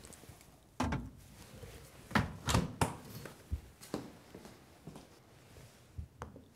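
A refrigerator-freezer door shutting, then a few scattered knocks and thuds of kitchen handling.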